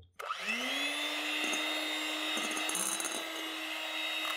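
Electric hand mixer whipping egg whites into meringue in a glass bowl. The motor starts about a quarter second in with a rising whine, then runs at a steady high speed.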